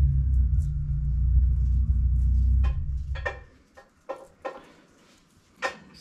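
A deep, steady low rumble that fades out about three seconds in. It is followed by a few light clicks and taps as garlic cloves are peeled with a small knife over a plate.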